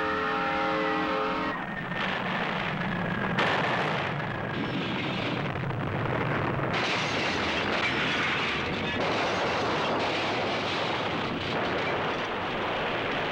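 A diesel locomotive's multi-chime air horn holds a chord for about the first second and a half, then cuts off. A continuous loud roar of tornado wind follows, with a sharper crashing burst about three and a half seconds in.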